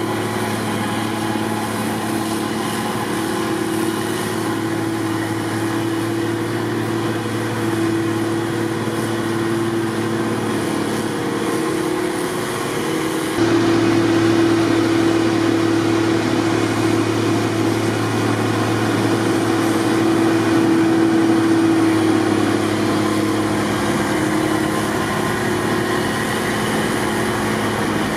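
Snowblower loaders' diesel engines and blowers running steadily at work. The sound jumps suddenly louder about halfway through.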